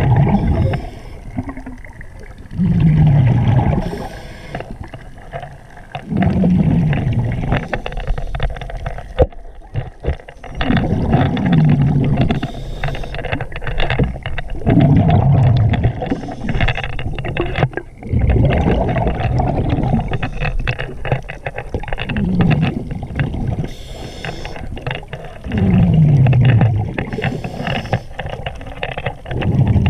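Scuba regulator breathing underwater: about eight exhalations, each a loud bubbling rumble with a falling tone, a few seconds apart, with brief hisses of inhalation between them.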